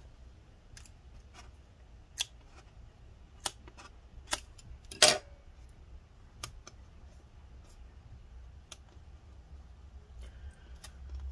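Scattered sharp clicks and taps of small hand tools against a laptop's battery and case while the battery's adhesive strips are pried up, the loudest about five seconds in.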